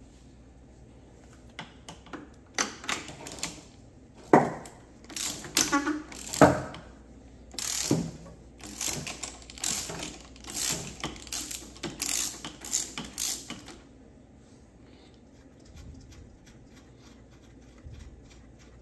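Hand ratchet clicking in short, irregular runs while bolts on the engine mount are worked loose; the clicking stops a few seconds before the end.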